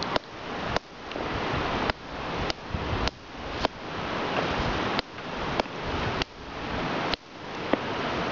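Loud steady hiss that swells and then cuts back abruptly at each of a string of short, sharp taps, roughly one every half second to second: the recording's automatic gain pumping on background noise.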